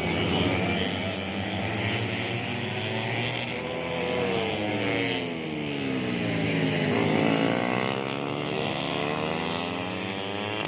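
Several 150cc four-stroke underbone race motorcycles running at high revs. Their engine pitch falls for a few seconds and then climbs again about seven seconds in, as the riders go down through the revs and accelerate away.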